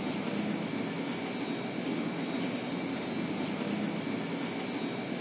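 Steady low rumbling background noise, with a faint high steady tone running through it.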